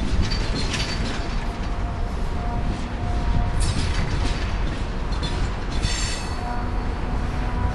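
Coal train's hopper cars rolling slowly past on a curve: a steady rumble and clatter of steel wheels on rail, with a few short high squeals from the wheels on the curve.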